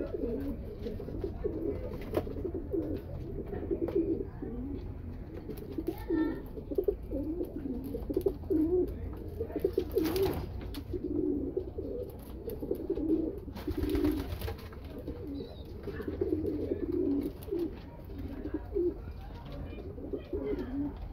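Domestic racing pigeons cooing, low warbling coos repeating over and over, with two brief rushes of noise about ten and fourteen seconds in.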